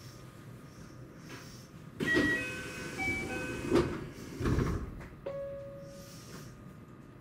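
Electric train's door chime sounding a short run of tones, then the sliding doors thudding shut twice, and a single short beep about five seconds in.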